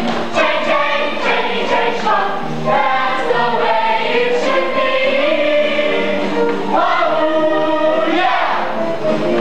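A stage musical's cast singing an up-tempo number together in chorus over musical accompaniment, with sharp hits on the beat in the first few seconds.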